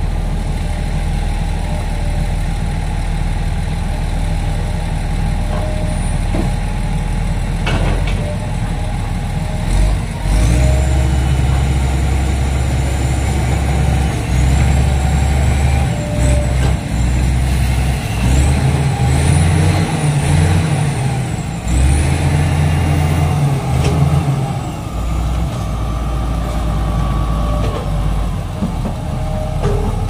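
Diesel engine of a SANY SY215C hydraulic excavator running at a steady note, then pulling harder from about ten seconds in as it digs, its sound rising and dipping again and again. Faint high-pitched squeals come in near the middle.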